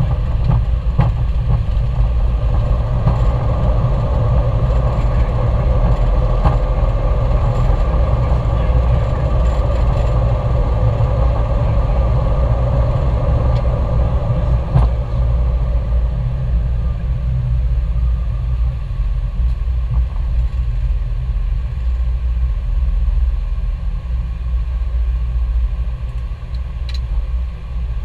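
Steady engine rumble: a deep rumble with a constant drone above it, growing a little quieter near the end.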